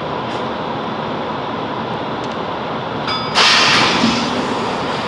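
Inside a Class 165 Networker Turbo diesel multiple unit: steady running noise of the train, then about three seconds in a sudden loud hiss of air that fades over roughly a second.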